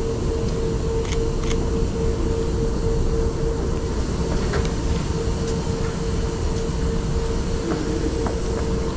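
A train standing at a platform: a steady low rumble with one held hum tone, and a few faint clicks.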